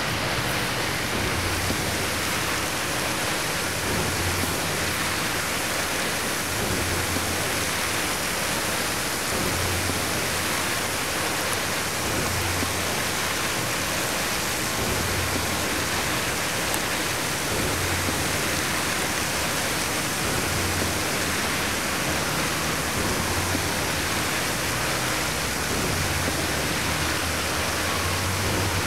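Fountain water splashing and falling in a steady, even rush.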